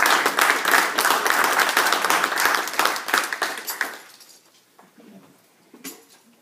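A small audience applauding with hands clapping; the applause dies away about four seconds in, leaving a few faint knocks.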